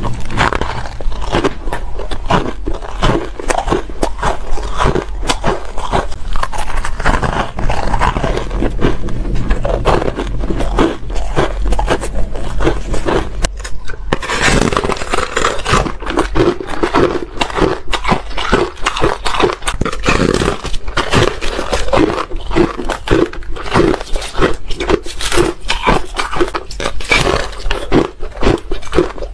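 Close-miked crunching and chewing of soft, crunchy shaved ice, a dense run of rapid crunches under a steady low hum. After a brief break about 14 seconds in, bites into a foamy frozen ice slab follow, crisper and brighter.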